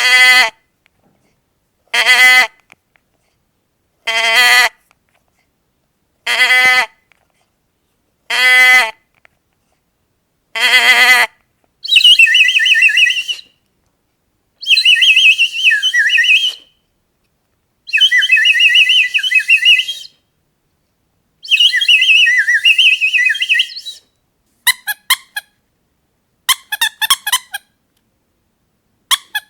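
A run of sound effects: six short pitched animal-like calls about two seconds apart, then four longer harsh, squawking calls of about two seconds each, then quick clusters of squeaks near the end.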